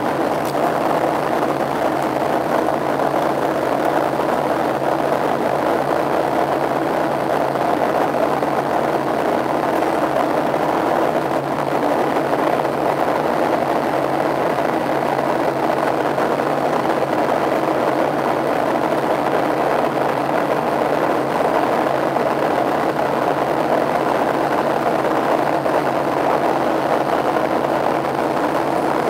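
Steady cabin noise of a Boeing 737-700 in flight, heard from a window seat beside the wing: the hum of its CFM56-7B turbofan engine blended with the rush of air past the fuselage, unchanging throughout.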